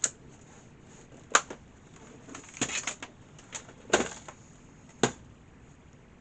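Plastic clicks and knocks from a laptop being handled as a battery is slotted into it: about five sharp clicks spread over six seconds, with no startup sound from the machine.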